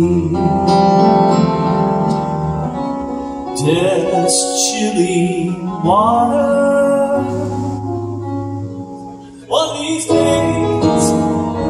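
Male southern gospel vocal group singing with piano accompaniment, with long held notes; the sound dips briefly about nine and a half seconds in before the voices come back in.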